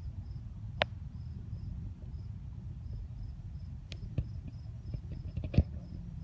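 A cricket chirping steadily, about two short high chirps a second, over a low rumble. A few sharp clicks sound about a second in and between four and six seconds in, the loudest near the end.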